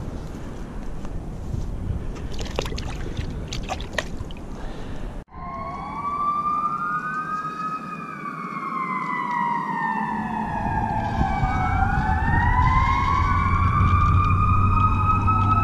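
Light rustling and a few clicks in dry grass for the first five seconds. Then, after an abrupt cut, emergency-vehicle sirens wail, two or more overlapping, each sliding slowly up and down in pitch. A low steady hum joins about ten seconds in.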